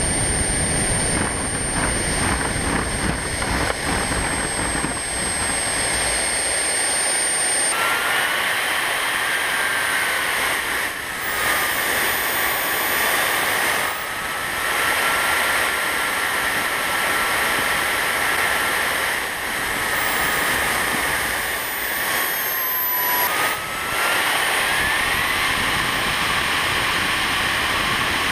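Model airplane's motor and propeller heard from an onboard camera: a steady whine over a rushing noise, its pitch drifting with the throttle and rising quickly near the end.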